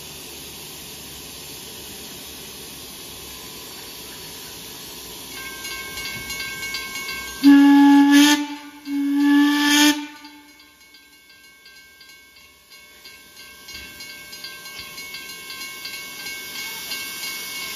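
Steam whistle of Heisler No. 3, a 1915 wood-burning geared steam locomotive, sounding two long blasts, the second a little longer. A grade-crossing bell rings steadily from about five seconds in and carries on after the whistle stops.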